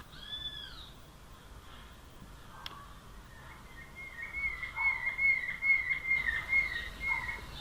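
Rufous hornero singing: a fast series of shrill repeated notes, about three a second, that starts about four seconds in and runs for about three seconds. A single short call comes near the start.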